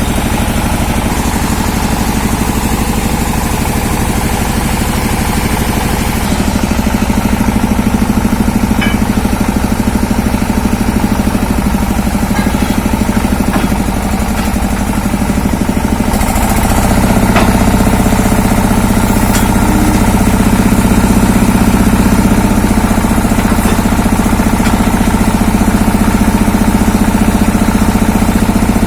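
Engine of an industrial well-drilling rig running steadily, getting louder about six seconds in and again around seventeen seconds in.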